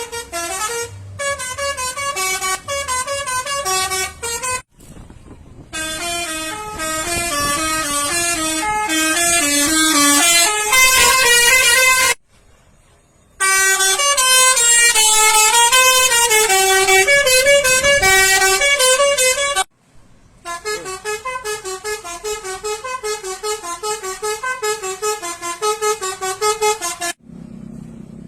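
Indonesian bus 'telolet' horn: a set of multi-tone horns playing quick, stepping melodies, several notes at once. The horn plays in long runs broken by a few short pauses, the longest lasting about a second.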